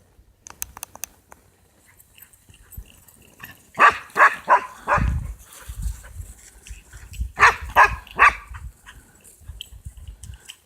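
Dogs barking at birds flying by, in two short volleys: about four barks a little under four seconds in, then three more about three seconds later.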